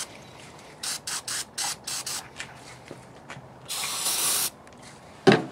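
Aerosol carburetor cleaner sprayed onto an SU carburetor: a quick run of short hissing spurts, then one longer blast of nearly a second.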